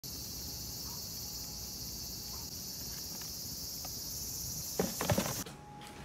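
Steady, high-pitched chorus of insects, cutting off suddenly about five and a half seconds in. A few short knocks or scuffs come just before it stops.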